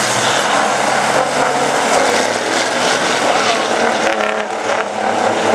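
Several big-rig semi-truck engines racing in a pack around the oval, a steady loud engine drone with overlapping pitches that shift as the trucks pass.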